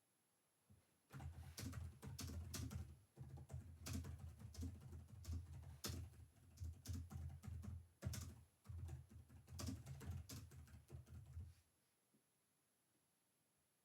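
Typing on a computer keyboard: quick runs of key clicks starting about a second in, broken by two brief pauses, and stopping a couple of seconds before the end.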